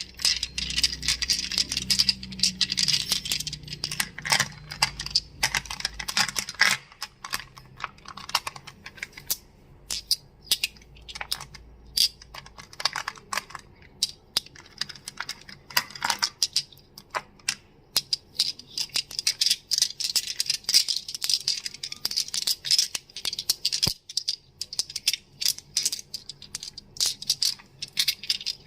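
Crystals clicking and clacking against one another in rapid, irregular taps that thin out briefly a few times.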